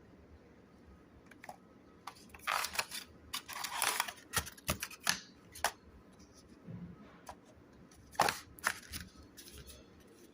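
Packaging and phone being handled during an unboxing: two bursts of rustling, scraping and clicking, the first running for a few seconds and a shorter one near the end.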